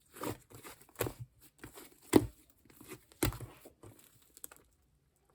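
Fluffy shaving-foam slime being pressed and pulled by hand, giving crinkly, crackling squishes about once a second.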